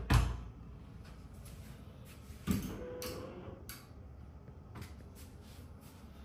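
Hotel bathroom door being pushed open as someone walks in: a knock at the start, another knock about two and a half seconds in with a short squeak, then a few light clicks.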